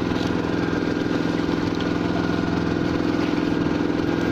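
Fishing boat's engine idling steadily, an even, unbroken running sound.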